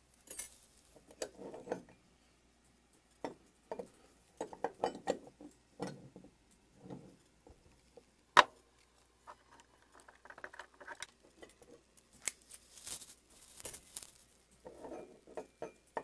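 Metal plates of a puck-lock door hasp being handled and slid together on a tabletop: scattered clicks, scrapes and knocks, with one sharp metallic click a little past the middle.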